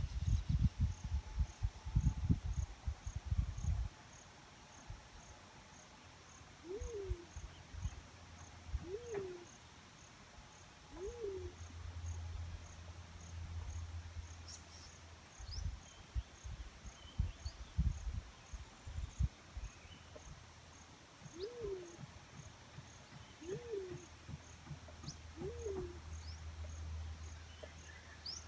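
Black-chinned fruit dove calling: low hoots, each note rising then falling, given in two sets of three about two seconds apart. An insect ticks rapidly and steadily throughout, and low rumbling thumps come in the first few seconds and again about halfway through.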